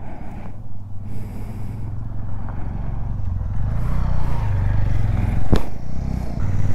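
Royal Enfield Interceptor 650's parallel-twin engine running as the motorcycle rides along, growing steadily louder, with a single sharp click about five and a half seconds in.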